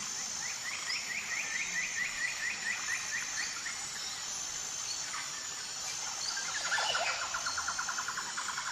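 Forest ambience: a steady high insect drone under a bird calling in quick runs of repeated notes, one run in the first few seconds and a faster one near the end.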